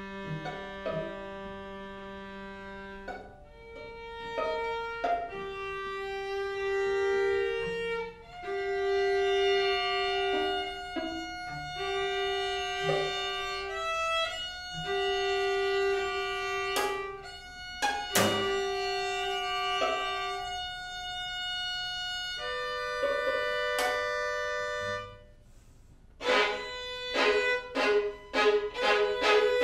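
String quartet of two violins, viola and cello playing a contemporary piece: long held bowed notes over a low cello note at the start, with a few sharp accented attacks. After a brief pause near the end, it breaks into a quick series of short, accented notes.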